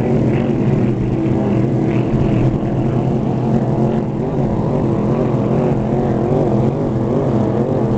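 Engines of several racing hydroplanes running flat out across the lake, a loud steady drone whose pitch wavers slowly.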